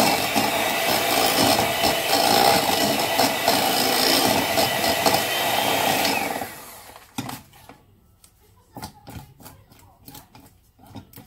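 Electric hand mixer running steadily, its beaters whipping cream cheese and sugar in a bowl, then cutting off about six and a half seconds in. After that come scattered short knocks and scrapes of a spatula against the bowl.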